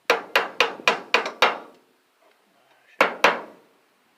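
Hammer blows on the metal of a large electric motor being broken apart for scrap: six quick strikes at about four a second, then a pause and two more strikes, each with a short ring.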